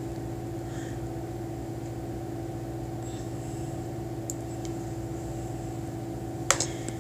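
Steady background hum with several constant tones, with a few faint ticks and one sharper click near the end.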